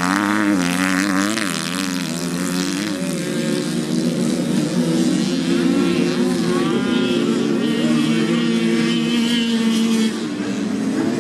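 Several moped-class motocross bikes racing, their small two-stroke engines revving up and down and overlapping one another.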